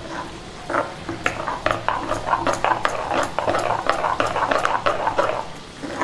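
A spoon stirring buttermilk (yogurt, water and turmeric) briskly in a clay pot: rapid, irregular clicks and scrapes of the spoon against the pot, with the liquid sloshing.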